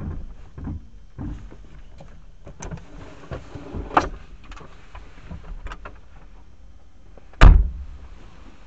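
Knocks and rattles inside a moving vehicle, picked up by a dashcam's microphone, over a low rumble that fades in the first second. One heavy thump comes about seven and a half seconds in.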